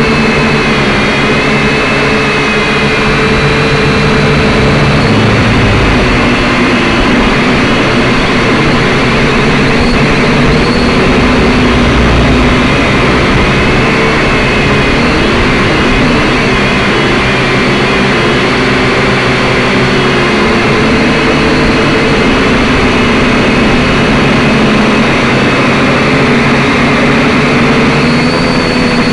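Syma X5C-1 quadcopter's small brushed motors and propellers running in flight, a loud steady buzzing whine whose pitch wavers up and down with throttle changes.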